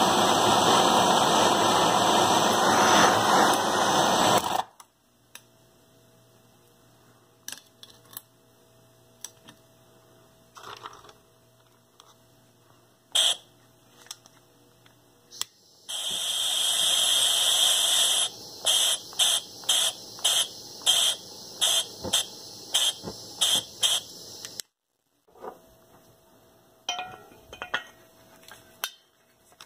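Bernzomatic propane hand torch burning with a steady hissing flame, shut off sharply about four and a half seconds in. After some faint clicks it burns again from about sixteen seconds in, then sputters on and off in short bursts about twice a second, the sign of poor gas flow.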